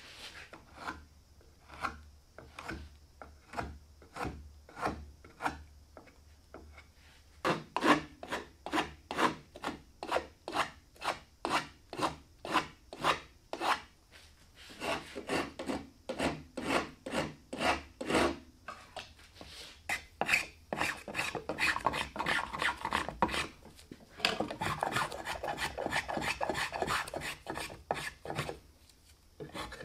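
Edge tools shaving cypress wood in repeated scraping strokes: a drawknife and then a spokeshave, each pass a short rasping cut. The strokes come at about two a second, faint at first and louder from about a quarter of the way in. They come quicker and closer together through the last third.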